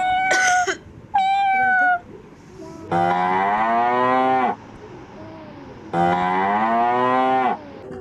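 A cat meowing twice in short high calls, then a cow mooing twice, each moo a long low call that rises slightly in pitch.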